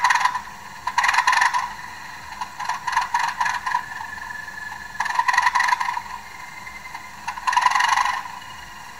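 Sound-fitted Bachmann Class 37 OO-gauge model diesel locomotive standing still and playing its recorded diesel sounds through its small onboard speaker. Bursts of rapid clicking come and go every second or so, thin and with no deep rumble.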